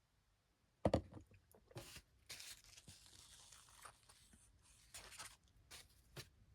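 A few scattered key presses on a Logicool POP Keys mechanical keyboard, the loudest a double clack about a second in, with a rustling, scraping noise between the keystrokes.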